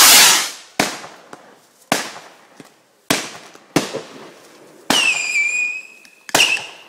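Fireworks going off: a loud rushing burst as a shot of sparks fires upward, then a string of sharp bangs about a second apart. Near the end come two high whistling shots.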